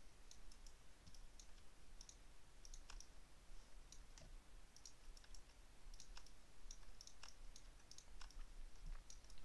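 Faint, irregular computer mouse clicks, a few a second, as polygons are selected one by one in a 3D modelling program.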